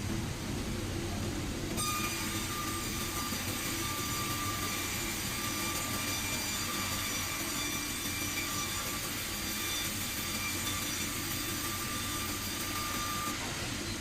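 Sawmill machinery running with a steady low rumble. From about two seconds in until near the end, a high steady whine with a hiss joins it, then cuts off.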